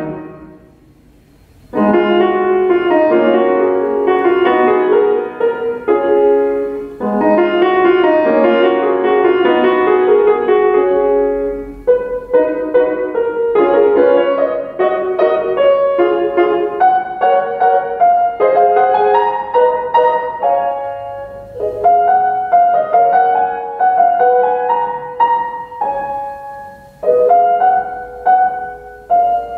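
Solo grand piano (a Samick) playing a classical piece. It pauses a second in, resumes with a dense, busy passage, and from about the middle on plays lighter with many short, detached repeated notes.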